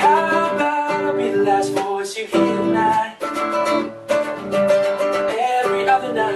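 Music: a strummed guitar with a singing voice.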